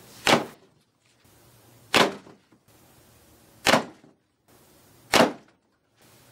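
Traditional recurve bow with fur beaver-ball string silencers being shot, four times about a second and a half apart, each shot a single short, sharp thump of string and arrow.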